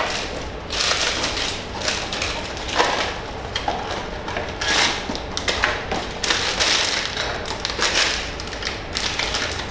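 A cardboard blind box and the foil bag inside it being torn open and handled: a run of irregular crackling, rustling and tapping bursts.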